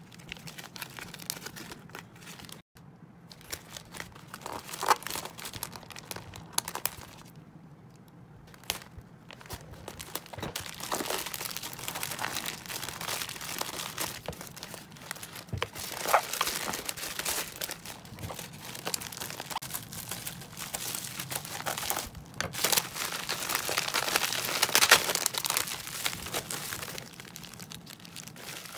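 Plastic packaging crinkling and rustling as small plastic bags and bubble wrap are handled, with a plastic courier mailer being torn open partway through. The loudest crinkling comes about three quarters of the way in.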